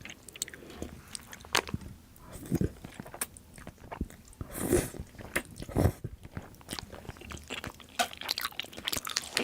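A person chewing and biting food close to the microphone: a run of small crunches and clicks, with a few louder bites around the middle.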